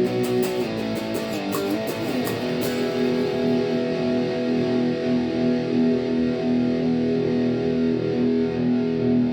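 Overdriven electric guitar: a 1984 Washburn T-Bird played through its bridge humbucker, a Power Sustain pickup. It plays a few quick picked notes and chords, then lets a chord ring out and sustain for several seconds.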